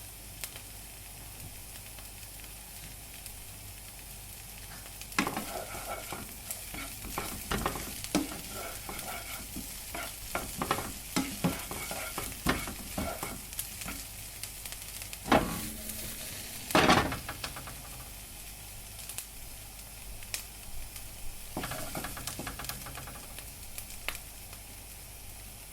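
Food frying in a pan with a steady sizzling hiss, while a utensil stirs and scrapes it in stretches of sharp clicks and scrapes. Two louder scrapes come about two-thirds of the way through.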